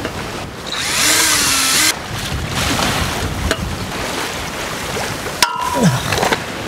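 Cordless drill boring into an aluminium pipe, running for just over a second starting about a second in, then stopping; wind and sea wash underneath.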